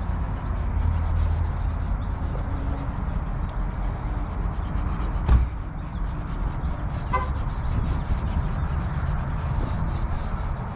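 Steady rubbing as a chemical oxidation-removal wipe is scrubbed back and forth over an oxidized plastic headlight lens by a gloved hand, with one sharp knock about five seconds in.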